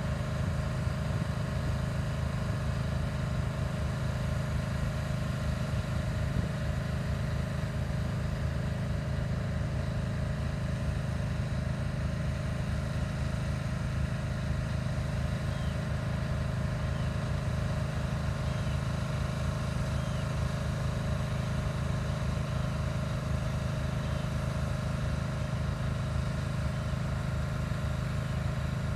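Steady low mechanical drone, like an engine or generator running at a constant speed, with faint short high bird calls every second or two through the second half.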